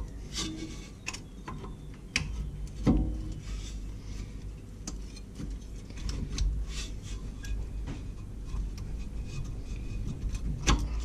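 Irregular metal clicks and knocks of a rear disc brake caliper being worked by hand back into place over the rotor, with a louder knock about three seconds in.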